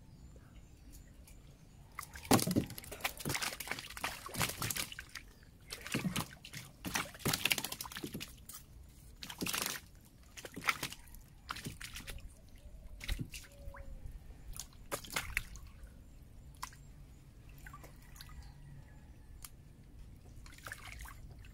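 Water sloshing and splashing in irregular bursts as a person moves about in chest-deep river water, busiest from about two seconds in and dying down for the last few seconds.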